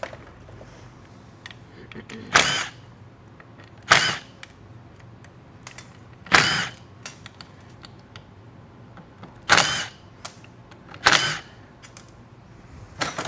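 Red cordless power driver spinning in about six short bursts, a second or two apart, as it works the screws on an automatic transmission's valve body plates.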